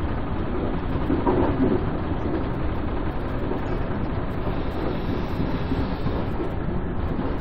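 Steady low rumble of an NJ Transit commuter train car in motion, heard from inside the car, swelling slightly about a second in.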